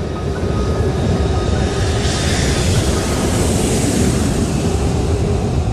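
Ilyushin Il-76 four-engine jet cargo plane landing on a blue-ice runway. Its engine noise swells to a loud hiss between about two and four seconds in as it passes, over a steady low rumble.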